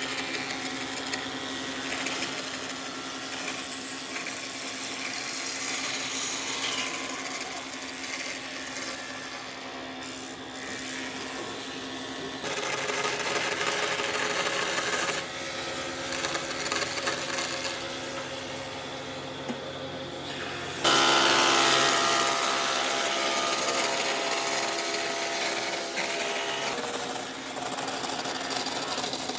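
Power tools working wood, with a steady motor hum under scraping and cutting noise. The sound changes abruptly several times as one short shop clip follows another.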